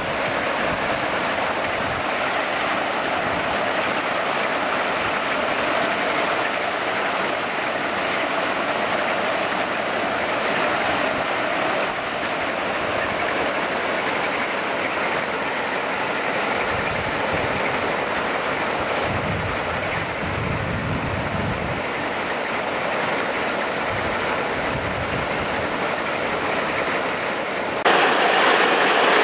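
Steady rushing noise of a Plasser & Theurer track-maintenance train at work, its conveyor belts running and spoil pouring off the end of the conveyor. Near the end it cuts abruptly to a louder, harsher noise as the machine's arm digs through the trackside ballast.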